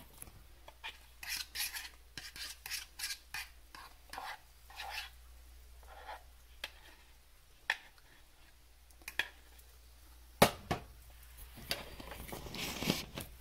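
Fork stirring chaffle batter of egg and cream cheese in a plastic mixing bowl: quick scraping, clinking strokes for the first five seconds or so, then scattered single taps. A sharp knock about ten seconds in, with more scraping near the end.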